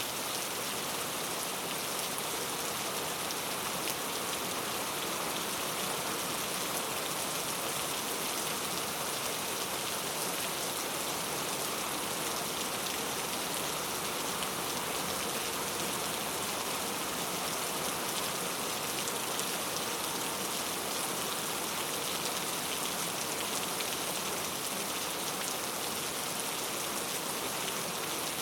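Heavy rain falling steadily, a dense, even hiss of drops on surfaces with no let-up.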